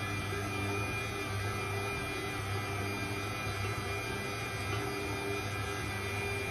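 Electric stand mixer running steadily at kneading speed, its dough hook working wet bread dough in a steel bowl: an even motor hum with a thin high whine.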